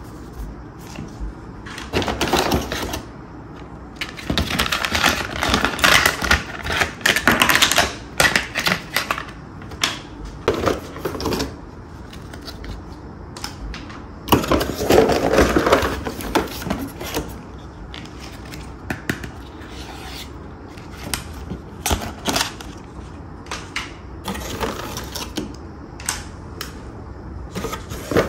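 Hands handling plastic toy track pieces and packaging: irregular clicking and clattering with bits of rustle. It comes in dense clusters in the first half and thins to scattered single clicks later on.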